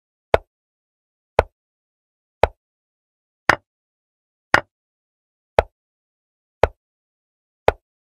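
Chess-program piece-move sound effect: a short, sharp wooden-style click for each move as the game replays, eight clicks about a second apart. The two clicks near the middle are louder than the rest.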